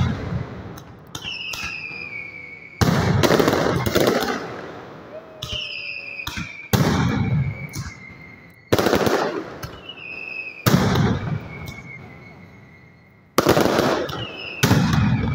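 Mascletà firecrackers going off in about seven loud volleys of sharp, rapid bangs, one to three seconds apart. Between the volleys come high whistles that slowly fall in pitch.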